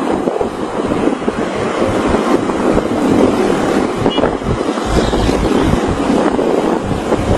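Wind buffeting the microphone of a recording made from a vehicle moving fast along a road, over a steady rush of road and vehicle noise.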